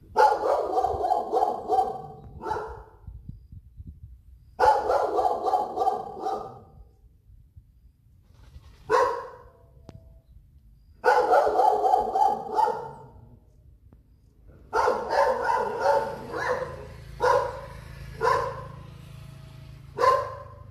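A dog barking in repeated runs of rapid barks, with a few single barks between the runs.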